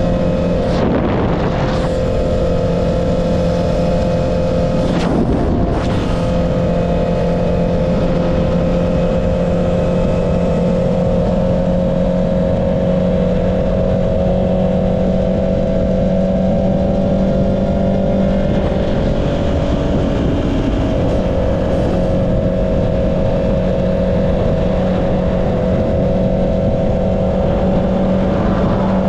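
Honda CB650R's inline-four engine running through an Akrapovic exhaust at a nearly constant engine speed while cruising, with a few brief whooshes over it.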